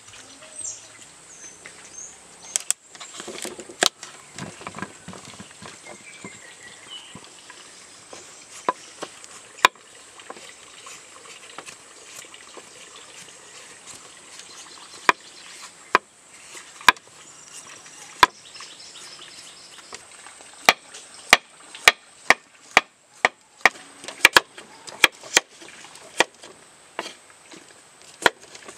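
Kitchen knife chopping squash on a wooden chopping board: sharp knocks, a few scattered ones at first, then coming about twice a second in the last third as the flesh is diced. A faint steady insect chorus runs behind.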